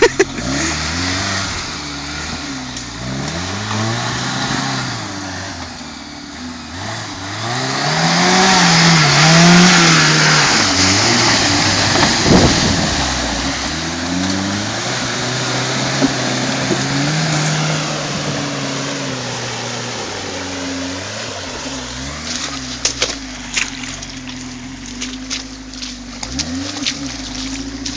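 Suzuki Samurai's engine revving up and down in low gear as the 4x4 churns through deep mud and water, rising to its loudest with a wash of splashing about 8 to 10 seconds in. Near the end a patter of sharp clicks comes over the engine as mud sprays from the wheels.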